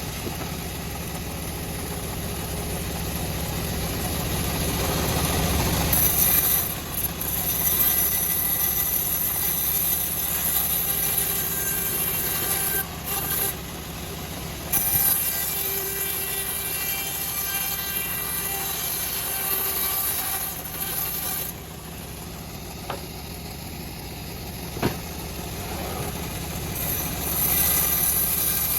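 A homemade bandsaw mill running steadily while sawing a teak log. It makes a continuous engine-like drone, and a high hiss comes and goes, dropping out for a few seconds past the middle.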